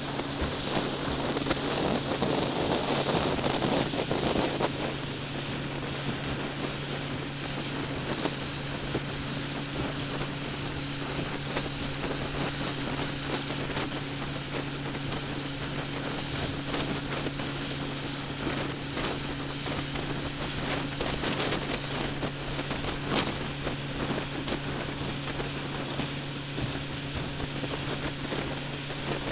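Small ferry boat's engine running steadily under way, a constant drone, with wind rushing on the microphone. The wind is strongest for a few seconds near the start.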